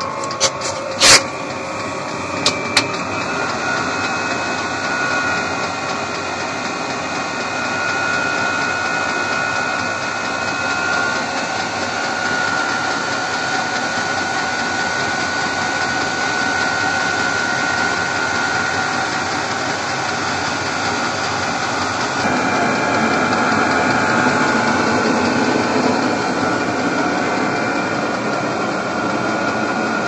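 Chinese 12 V diesel air heater starting up: its blower runs with a steady whine, with a few sharp clicks in the first three seconds. About 22 seconds in, the sound grows louder and fuller.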